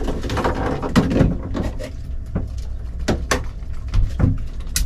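Scattered knocks, taps and clatter, about eight sharp ones spread over a few seconds, from tools and gear being handled in a sailboat's lazarette, over a low steady rumble.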